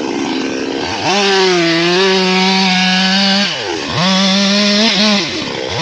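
Two-stroke chainsaw revving hard in bursts. About a second in, its engine climbs to a high, steady scream and holds it for a couple of seconds, then drops away briefly and revs up again twice.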